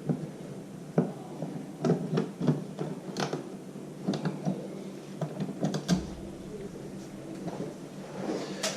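Small, irregular clicks and taps of a screwdriver, screws and plastic as a wall light switch is unscrewed and worked out of its electrical box, with a louder knock about a second in and a quick run of sharp clicks near the end.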